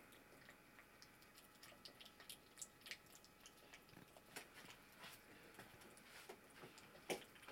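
A cat eating wet food from a bowl: faint, quick, irregular chewing and smacking clicks. One louder knock comes near the end.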